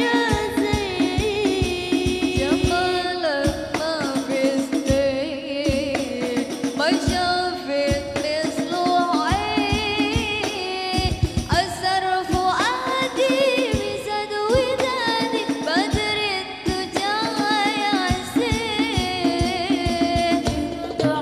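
Sholawat, an Islamic devotional song, sung by female voices into microphones, with rebana frame drums beating a steady, busy rhythm underneath. The melody is sung with melismatic glides and ornaments.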